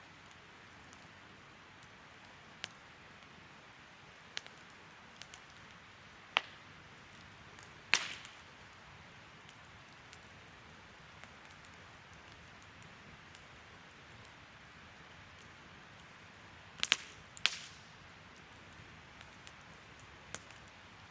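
Wood fire burning with a soft, steady hiss and sparse, sharp crackles and pops. The loudest pop comes about eight seconds in, and a close pair of pops comes near the end.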